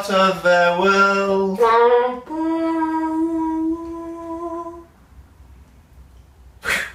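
A solo voice singing a tune in short held notes, ending on one long note that fades out about five seconds in. A short noisy burst follows near the end.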